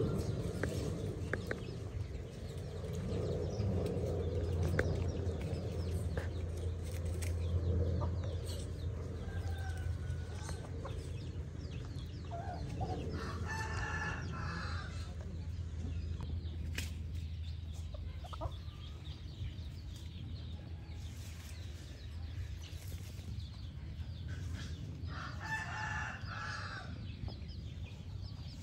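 A rooster crowing twice, about 13 seconds in and again near 25 seconds, each crow lasting a second or two, over a steady low hum.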